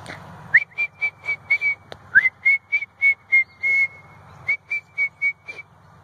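A person whistling an imitation of a blue jay's morning call: three runs of short, clipped notes at one high pitch, about four a second. The first two runs open with an upward-sliding note.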